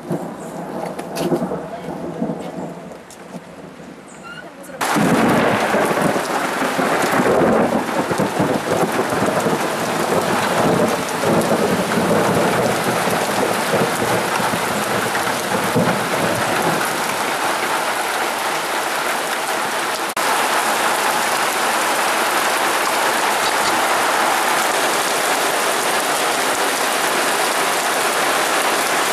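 Thunder rumbling over light rain, then about five seconds in a sudden switch to a heavy downpour hissing steadily, with thunder still rumbling through it for a while.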